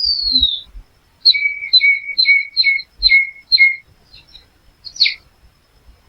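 A small songbird singing: a falling whistled note, then a run of six quick repeated two-part notes, high then lower, at about two a second, and one more falling note near the end.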